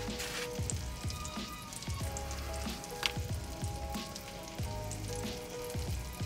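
Egg-and-flour-coated chicken cutlet frying in a cast-iron skillet: a steady sizzle with scattered small crackles.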